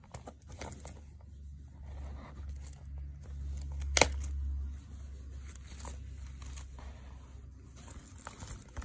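Hands handling a coated-canvas wallet: small rustles, scrapes and clicks, with one sharp click about four seconds in and a low rumble under the first half.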